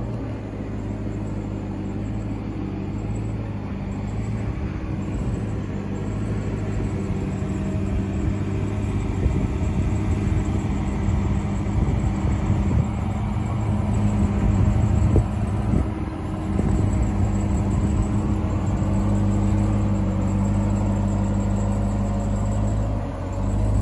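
2021 Ram 1500 TRX's supercharged 6.2-litre V8 running at a steady low engine speed while the truck crawls over rough off-road terrain, growing gradually louder. In the middle there is a stretch of knocks and clatter.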